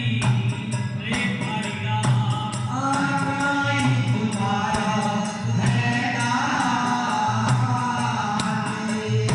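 Devotional bhajan music: a sung melody over steady rhythmic hand percussion.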